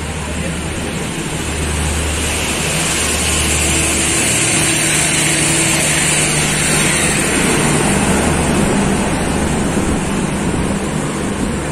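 Passenger coaches of a departing express train rolling past close by: a steady rumble and rush of wheels on rail that grows louder over the first couple of seconds, with a steady hum midway as the power van goes by.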